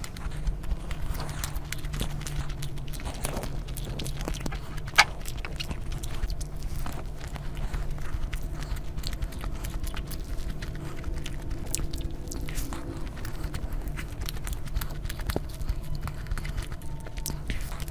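A person chewing and biting food close to the microphone, with many small crisp clicks and one sharper snap about five seconds in.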